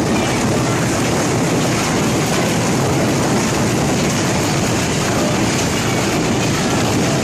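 Small hailstones falling thickly, a dense steady clatter of countless stones striking hard surfaces, with no let-up.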